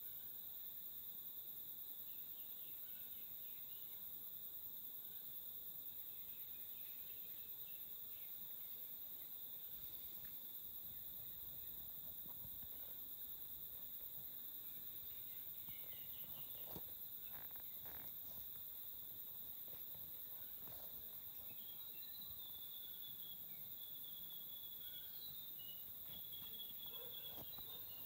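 Insects buzzing in a steady high drone, with scattered faint chirps and a few soft clicks about two-thirds of the way through.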